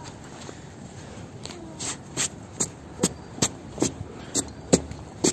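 Footsteps in fresh snow, a steady walking rhythm of about two to three steps a second that starts about a second and a half in.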